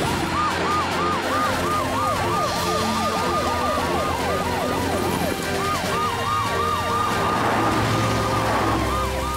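Several cartoon emergency-vehicle sirens sounding together, from a police car, an ambulance and a fire truck. Their quick rising-and-falling wails overlap at about two per second, over a low rumble. Near the end one siren holds a long tone that slides down.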